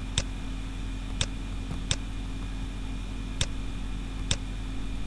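Five sharp, single clicks at uneven intervals as handwriting is drawn stroke by stroke on a digital whiteboard, over a steady electrical hum.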